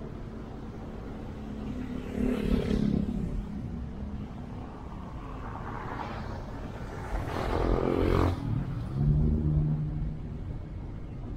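Road traffic: a steady low engine hum, with two louder swells of motor vehicles passing close by, one about two seconds in and another around seven to eight seconds in.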